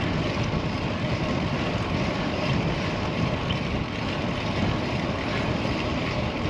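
Strong headwind rushing and buffeting over the microphone of a bike-mounted action camera while riding a road bicycle into the wind, a steady low rumbling roar.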